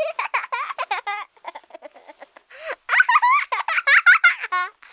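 A baby or young child giggling and laughing in quick high-pitched runs, loudest in the second half.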